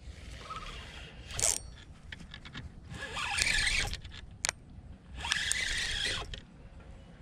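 Spinning reel being cranked in two bursts of about a second each, a whirring rattle as the line is wound in. A brief swish about a second and a half in, and a sharp click between the two bursts.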